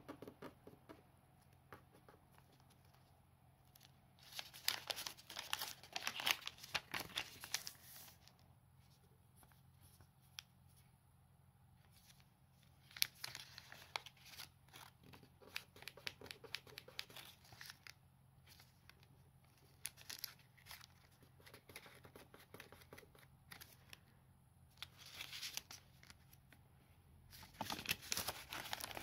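A sheet of origami paper rustling and crinkling with sharp crackles as it is folded and creased by hand. The sound comes in three main bouts of a few seconds each, with softer handling between.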